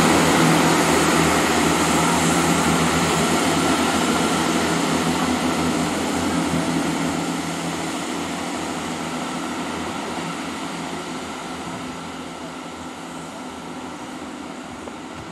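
Class 166 diesel multiple unit pulling away, its diesel engine running and wheels on the rails, fading steadily as it draws off into the distance.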